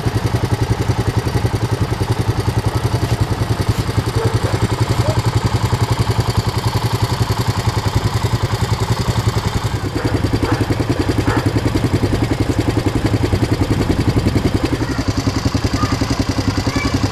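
ATV engine idling steadily with an even, rapid throb.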